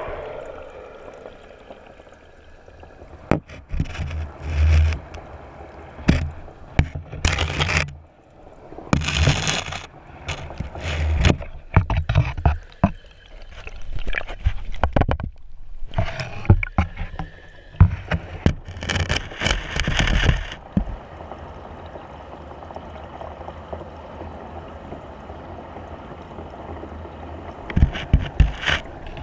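Water sloshing and splashing against an underwater camera housing at the surface of a fish tank, with irregular knocks and thuds. Past the middle it settles into a steady muffled water hiss, and a few sharp splashes come near the end.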